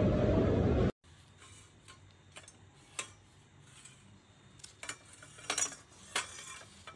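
A loud steady noise stops abruptly about a second in, followed by a few faint, sharp clicks and light handling taps against a quiet background.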